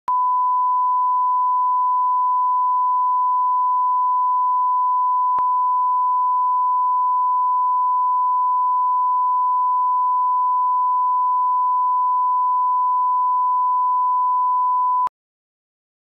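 Steady 1 kHz line-up test tone, the reference tone played with colour bars at the head of a programme master. It holds one unchanging pitch, then cuts off abruptly about a second before the end.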